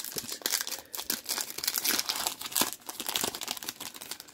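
Plastic foil wrapper of a trading-card pack crinkling as it is handled, a continuous irregular crackle.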